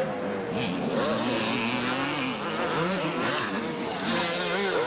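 Motocross bike engines revving on and off as they race over the supercross jumps, more than one engine heard at once, the pitch rising and falling continuously.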